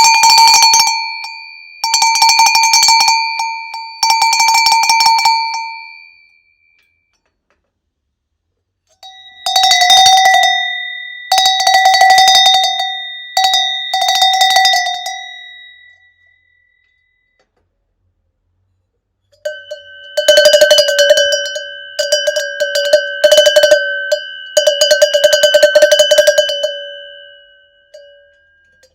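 Three sizes of handmade long, bulged cowbell rung in turn. Each is clanked rapidly in several bouts and left to ring out, and each bell rings lower in pitch than the one before.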